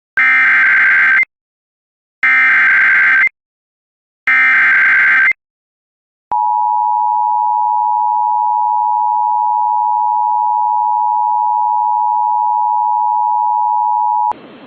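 Emergency Alert System SAME header: three bursts of digital data tones, each about a second long with a second's gap between them. These carry the machine-readable code of the alert. About six seconds in comes the EAS two-tone attention signal, a steady pair of tones held for about eight seconds, which marks the start of an emergency alert.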